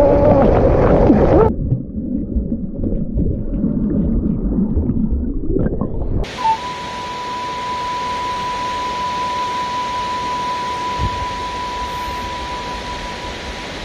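Falling water of a tall waterfall, an even rushing from about six seconds in with a thin steady tone over it. Before that the rushing is muffled and low, and in the first second and a half there is a long wavering cry.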